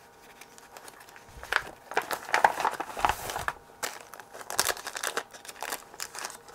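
Crinkling, rustling and small irregular clicks of things being handled and rummaged through by hand, searching for the probe's small adjustment tool. It starts about a second in and stops shortly before the end.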